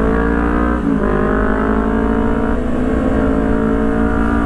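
Honda CBR250RR sport bike engine accelerating hard, its pitch climbing steadily with two short dips at upshifts, about a second in and past halfway.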